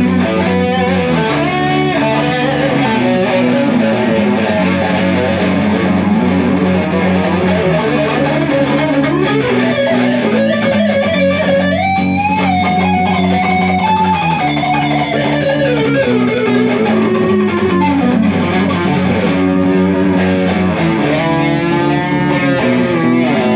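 Electric guitar, a Stratocaster-style instrument, playing an improvised lead solo over steady low notes. About halfway through a note is bent up and held, then slides down, and near the end comes a fast rippling run.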